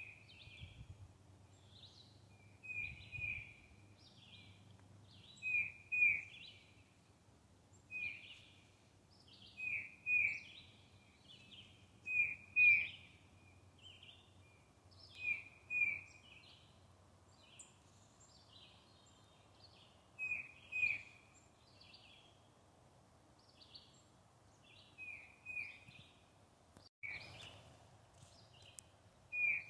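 A songbird calling over and over, a quick two-note phrase repeated every two to three seconds, with fainter chirps from other birds in between.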